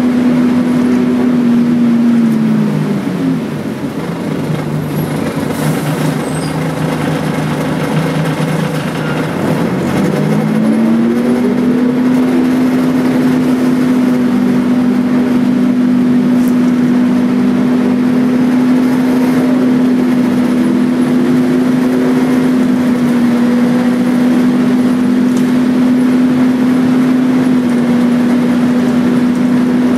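Volvo B10BLE bus's six-cylinder diesel engine, heard from inside the passenger saloon while under way. Its note falls about two to three seconds in, stays lower for several seconds, then climbs back around ten seconds in and holds steady.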